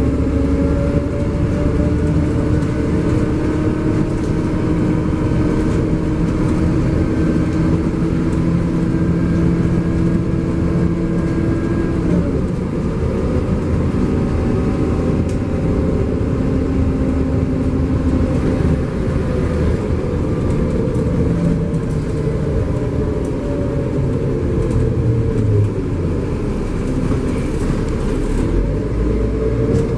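LiAZ-5293.60 city bus's diesel engine and drivetrain under way, heard from inside the cabin: the engine pitch climbs slowly as the bus gathers speed, drops sharply about twelve seconds in at a gear change, then rises and eases off again over a steady road rumble.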